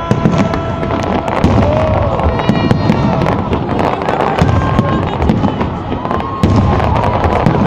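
Fireworks display: a dense, continuous run of sharp bangs and crackles over deep booms.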